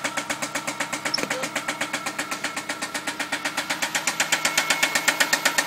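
VW Jetta mk4 2.0-litre four-cylinder engine idling with a steady, rhythmic knock, about eight or nine a second, which gets louder about four seconds in. The engine was run out of oil before its head was replaced, and the owner can't tell whether the knock is rod knock or valve noise.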